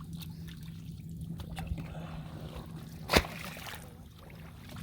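Shallow muddy water sloshing and trickling as hands work through it, with small clicks and one sharp slap about three seconds in. A faint steady low hum runs underneath.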